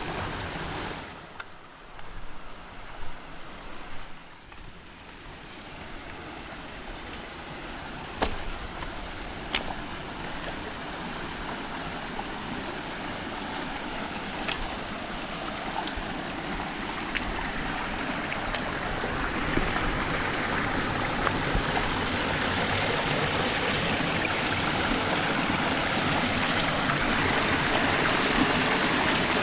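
Stream water rushing over rocks, a steady hiss that grows gradually louder, with a few sharp clicks early on.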